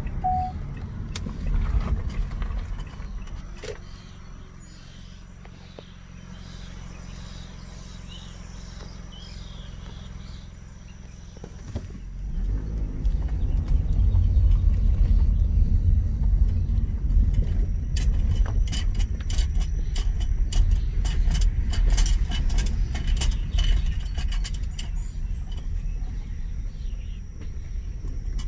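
A car driving: engine running with a steady low hum, then a louder low road rumble from about halfway through, with many short clicks and rattles over it.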